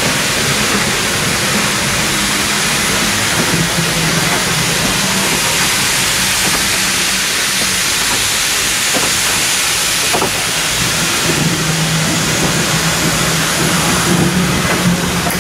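Steam locomotive blowing off steam: a loud, steady hiss with a low hum beneath it. A couple of faint clicks come from passenger coaches rolling slowly past.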